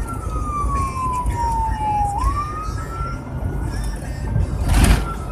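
Emergency vehicle's electronic siren in a slow wail, heard from inside the cab over the low rumble of the vehicle on the road: the pitch slides down for about two seconds, springs back up and climbs again, then starts falling once more near the end. A brief loud rushing burst comes just before the end.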